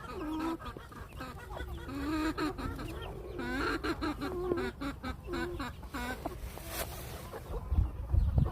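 Hen clucking: a run of low calls that rise and fall in pitch, repeated through most of the stretch, with a loud low thump near the end.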